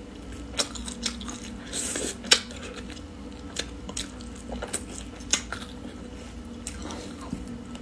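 Close-miked eating sounds of a person biting and chewing braised duck meat off the bone: scattered wet smacks and sharp mouth clicks, the loudest a little over two seconds in, over a faint steady hum.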